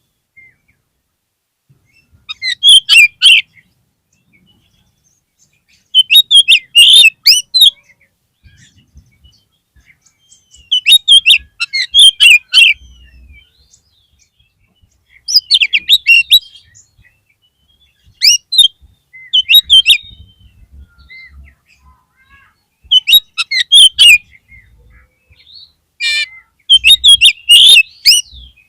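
Oriental magpie-robin (kacer) calling in loud bursts of rapid, sharp chattering notes, each burst about a second or two long, repeated about every three to four seconds.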